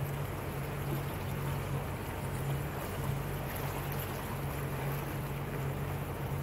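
A small motorboat's outboard motor running steadily under way: an even low hum over a constant hiss of water moving past the hull.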